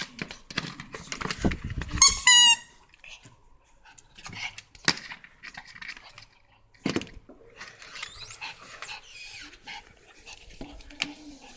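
A puppy panting and moving about while it plays, with a short run of high-pitched cries about two seconds in. A few sharp knocks come later.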